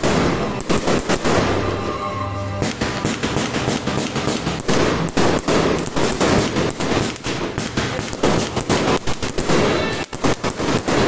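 Fireworks going off in rapid, dense volleys of bangs and crackle, with music playing underneath.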